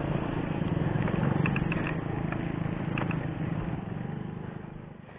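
Small motorcycle engine running just ahead, fading near the end as it pulls away. A few faint high chirps sound around the middle.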